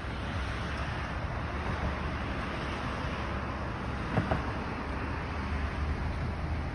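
Steady rumbling background noise, like traffic or wind outdoors, with one short squeak about four seconds in.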